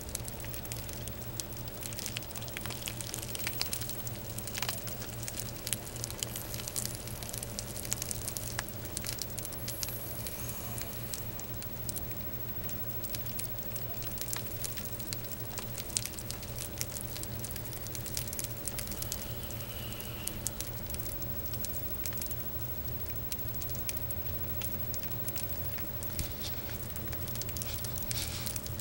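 Fine, continuous crackling and rustling: the dry old skin of a shedding Argentine boa crinkling as she crawls out of it. A steady low hum runs underneath.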